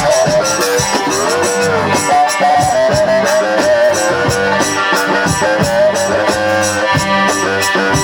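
Loud dance music: a lead melody sliding and bending in pitch over a steady, even drum beat.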